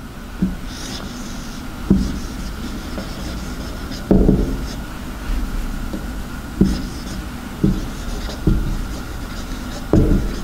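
Marker pen writing on a whiteboard: scratchy, squeaky strokes as letters are drawn, with several short dull knocks of the marker and hand against the board. A faint steady high hum runs underneath.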